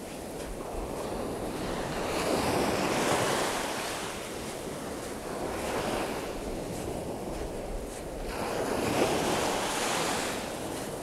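Small waves breaking and washing up a sandy beach. The surf swells twice, about two seconds in and again near the end, over a steady wind rumble on the microphone.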